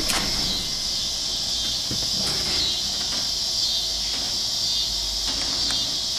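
Steady high-pitched chorus of insects such as crickets, trilling without a break, with a few faint clicks.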